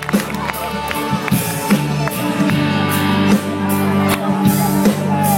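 Instrumental rock music: a band playing drums, bass and guitar with steady drum hits and held bass notes, no singing.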